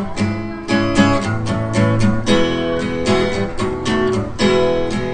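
Acoustic guitar strummed in a steady rhythm, chords ringing between strokes, during an instrumental break in a country-style song.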